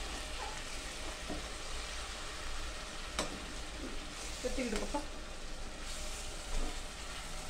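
Spiced chicken gravy sizzling in a pot on a gas burner while a metal spoon stirs it. The spoon clinks sharply against the pot about three seconds in.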